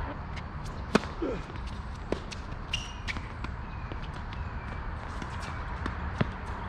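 Tennis rally on a hard court: sharp pops of the ball struck by racquets and bouncing, the loudest about a second in, another near the end as a low volley is played, with faint footstep scuffs between.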